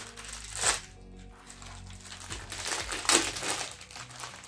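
Crinkly plastic snack wrapper being torn open and handled, with louder crackles about a second in and again around three seconds, over soft background music.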